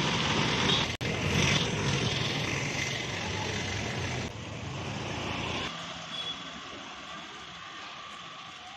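An auto-rickshaw's small engine running as it drives past close by, with a momentary dropout about a second in. After about four seconds the sound falls to quieter street background.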